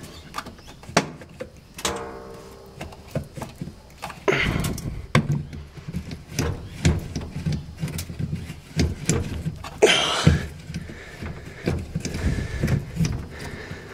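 Irregular knocks, clicks and scraping of a Fisher & Paykel washing machine's SmartDrive motor stator being wrestled back into place over the drive shaft, with louder scraping clunks about four and ten seconds in.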